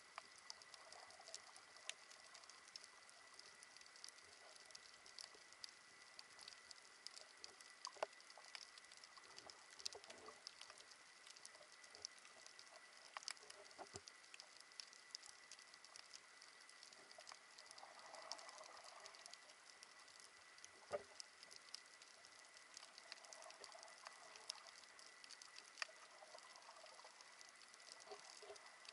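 Faint underwater crackle of many scattered sharp clicks, typical of snapping shrimp on a coral reef, heard through an action camera's waterproof housing, with a steady faint high tone underneath.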